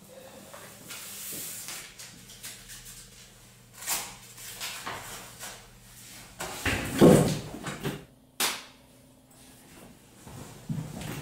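Fabric rustling and handling noises as a man pulls on a jacket and gets up from a chair. The loudest burst comes about seven seconds in, followed by a short sharp knock.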